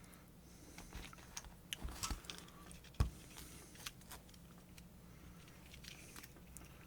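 Small clicks, scrapes and light knocks from handling the parts of a disassembled submersible pump motor, with one sharper knock about 3 seconds in, over a faint steady hum.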